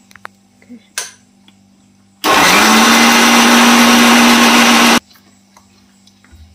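Kitchen mixer grinder with a steel jar running for about three seconds, grinding soaked sago to a paste: it starts abruptly with a short rising whine as the motor spins up, runs steady, then cuts off suddenly.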